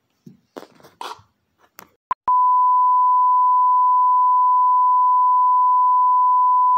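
Colour-bars test tone: one loud, steady beep at a single pitch, starting a little over two seconds in just after a short blip. A few faint, brief noises come before it.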